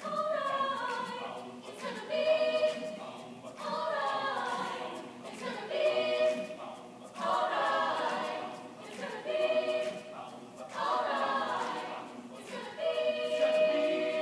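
Chamber choir singing in short phrases about every two seconds, several ending on a held chord, heard from the back of an auditorium.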